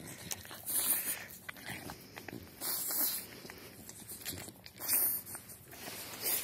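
French bulldog breathing noisily and snuffling at a hand, a loud hissy breath about every two seconds.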